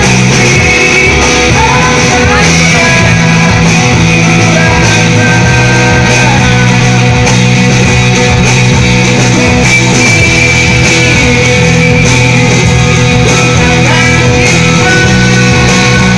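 Live rock band playing loud and steady, with electric guitar over bass and drums.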